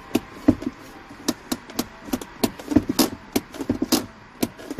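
Ford Mondeo Mk3 handbrake lever being worked by hand, its ratchet giving a run of sharp clicks at about three a second, irregularly spaced.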